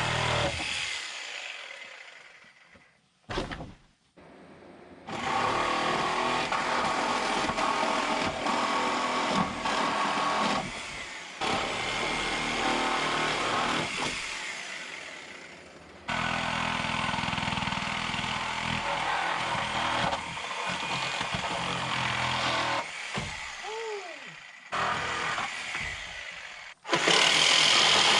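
Power saw cutting through the old deck's wooden framing, heard in a string of short takes that start and stop abruptly, with a few brief drops between them.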